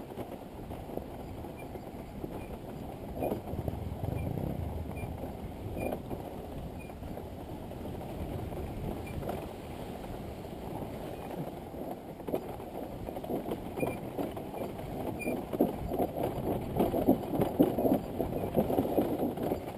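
Dirt bike rolling over a rough, rutted trail: a steady low rumble with irregular knocks and rattles from the bike over the bumps, getting busier and louder in the second half, with wind on the microphone.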